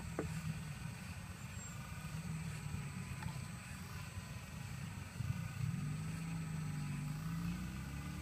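Excavator engine running steadily; about five seconds in its pitch dips and then rises and holds higher, as with the engine taking up load.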